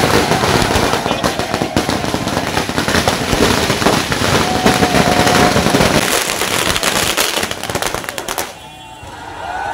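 A long string of firecrackers going off in a rapid crackle of bangs, with voices behind it. The bangs stop about a second before the end.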